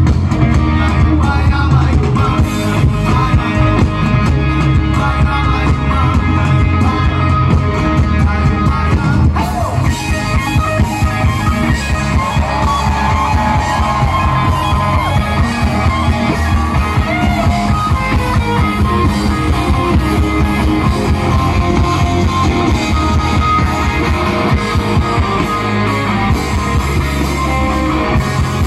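Live Bisaya pop-rock band playing through a concert PA: guitars and a drum kit with a steady beat, and a lead singer.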